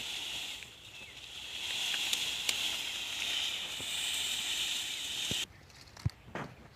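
Steady high-pitched hiss that cuts off suddenly after about five and a half seconds, followed by a few light clicks.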